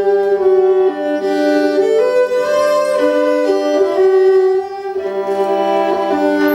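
Fiddle playing an instrumental passage of a slow folk tune between sung verses, the melody moving in held notes over a low sustained drone note.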